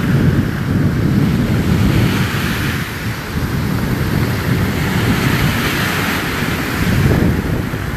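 Storm-driven sea waves breaking and surf rushing up the shore, with wind buffeting the microphone. The surf is a steady low rumble that swells near the start and again about seven seconds in.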